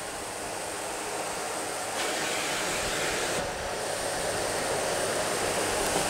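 Bosch BGS61430 Roxx'x bagless canister vacuum cleaner running at maximum power, its nozzle sucking itself fast onto fabric upholstery: a steady rush of air. It gets louder about two seconds in and dips briefly a little after halfway.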